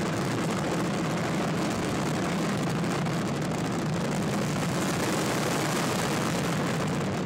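Steady, dense rushing noise with a low rumble, which stops abruptly at the end.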